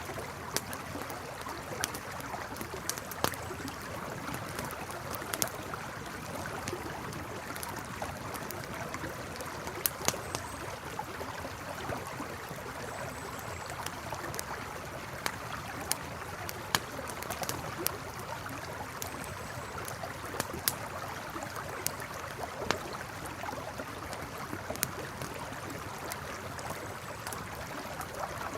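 Campfire crackling with sharp, irregular pops over the steady rush of a flowing river.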